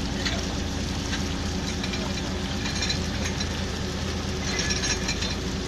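Fishing boat's engine and deck machinery humming steadily, with a few faint clinks from the deck as the net is hauled.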